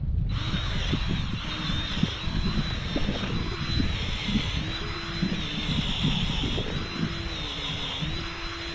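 Power drill with an auger bit boring into frozen dirt, its motor whining in repeated surges that dip as the bit loads up, with knocks and scraping of soil.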